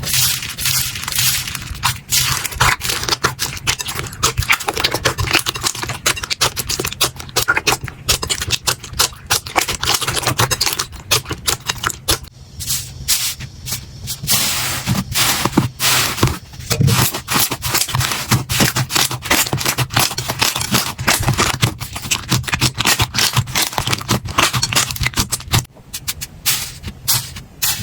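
Slime being squeezed, pressed and poked by hand: a fast, irregular run of sticky clicks and pops.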